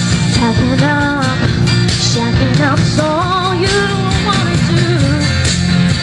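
A woman singing live into a microphone over loud pop-rock backing music with a steady drum beat and bass. Her sung phrase wavers in pitch and ends about five seconds in.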